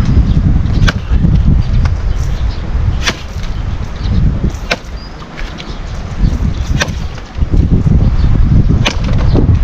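Gusty wind rumbling on the microphone, with about six sharp ticks or snaps scattered irregularly through it.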